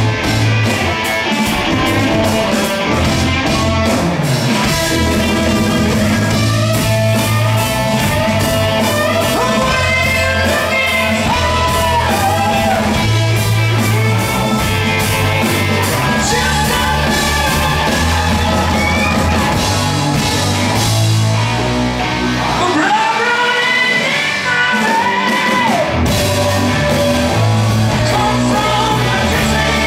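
Hard rock band playing live in a concert hall: electric guitar, bass and drums with a male singer over them. The bass drops out for about three seconds a little over twenty seconds in, then comes back.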